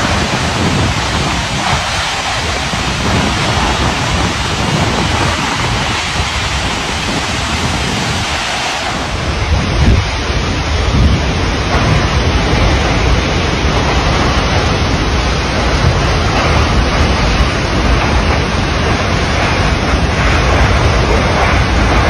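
A large waterfall: a steady, loud rush of falling water, growing deeper about nine seconds in.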